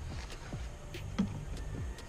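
Background music with a steady beat: repeated low kick-drum-like thumps and short clicks.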